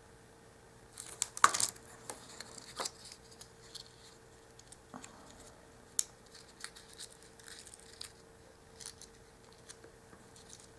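Small rustles, crinkles and light clicks of a tiny printed paper box being pinched and folded by hand. The loudest is a cluster of sharp rustles with a knock about a second and a half in, then only scattered soft clicks.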